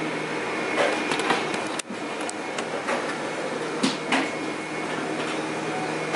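Metal serving tongs clinking against steel buffet pans and a plate, a few short sharp clicks about a second in and twice around four seconds in, over steady restaurant background hum.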